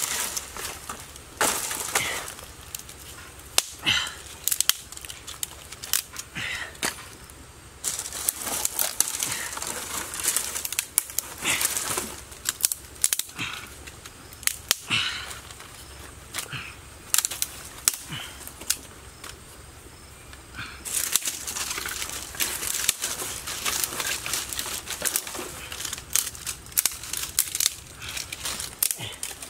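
Dry twigs and branches snapping and crackling as they are broken by hand, with the rustle of dry brush being gathered; repeated sharp snaps come in clusters with short quieter pauses.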